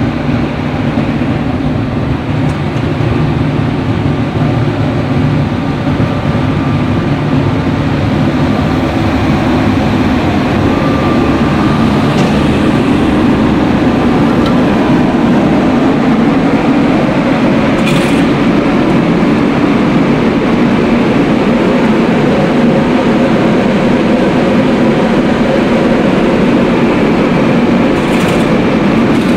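A biomass wood pellet and sawdust burner running, its blower fan and burning flame making a loud steady noise with a low hum as it fires into a boiler furnace.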